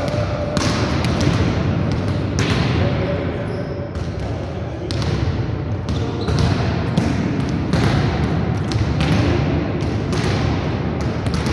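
Volleyballs being hit and bounced on a sports-hall floor: irregular slaps and thuds, several every couple of seconds, echoing in the hall.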